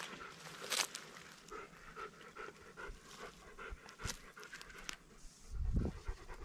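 A dog panting in quick, even breaths, about three or four a second. Scattered small clicks run through it, and a brief low rumble comes about five and a half seconds in.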